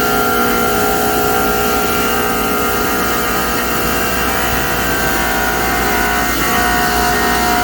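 CNC grinding and deburring machine running steadily, its motors giving a constant whine of several steady tones over a hiss.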